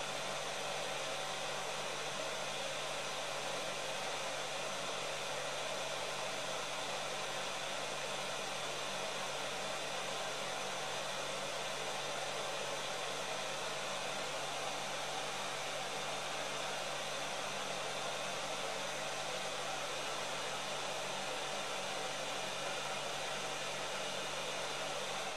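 Uten 959D hot air rework station's handpiece fan blowing steadily in its automatic cool-down cycle, pushing air through the heater to cool it after desoldering: an even rush of air with a faint low motor hum. The fan stops at the very end.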